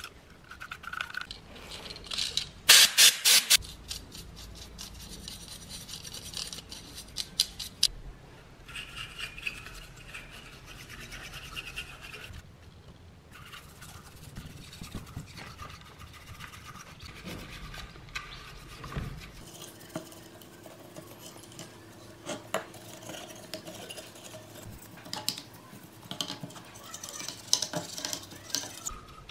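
A small bristle paintbrush scrubbing the dirt off an amplifier's printed circuit board in quick, irregular rubbing strokes, loudest about three seconds in.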